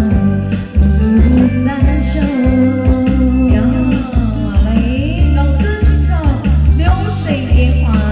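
Instrumental backing track of a Mandarin pop ballad, with a heavy pulsing bass beat under a gliding melody line, playing the song's closing bars.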